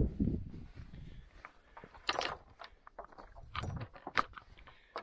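Rusty metal chain on a wooden field gate clinking and rattling in several short bursts as the gate is handled.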